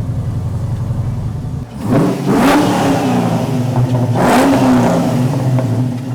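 LS V8 engine of a swapped Holden VH Commodore idling steadily, then accelerating hard about two seconds in: the engine note climbs, drops back and climbs again before easing off.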